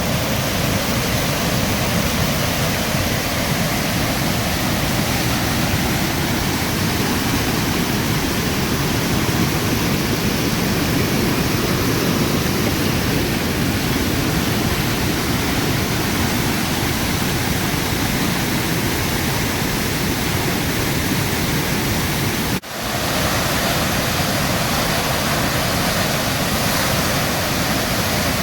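Row River in flood, water rushing in a loud, steady, even roar over the falls, with a brief break about three-quarters of the way through.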